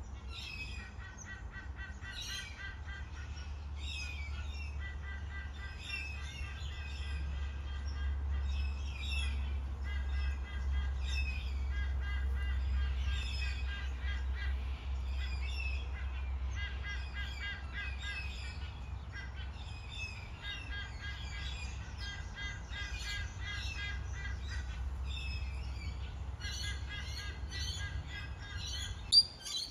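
Birds chirping and calling, among them a rapid pulsing call that repeats in short runs, over a steady low rumble of outdoor ambience. A single sharp knock comes near the end.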